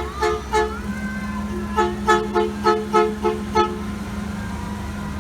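A vehicle horn honking in short two-note beeps: two near the start, then seven quick ones in a row, over a steady low engine hum.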